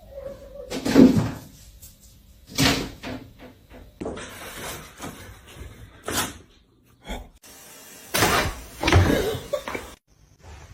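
Several separate knocks and bangs, like a cupboard or door being knocked or shut, with quieter stretches of room noise between them.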